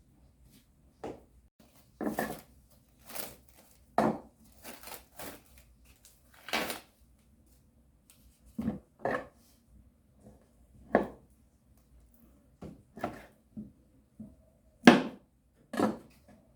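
Kitchen handling sounds: dishes, pans and utensils set down and knocked against each other, in separate clinks and knocks a second or so apart.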